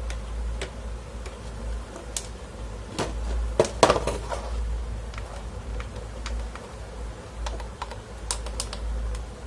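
Irregular light clicks of an induction stove's newly soldered tactile push-button switch being pressed and its plastic panel parts handled, over a steady low hum.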